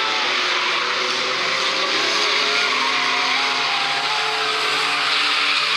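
A pack of banger-racing cars running hard together, several engines revving at shifting pitches over a dense, steady wash of engine and tyre noise.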